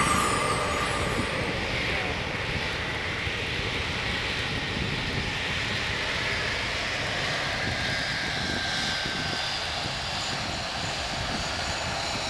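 Airbus A380 jet engines running as the airliner rolls along the runway: a steady, even engine noise with a faint high whine over it.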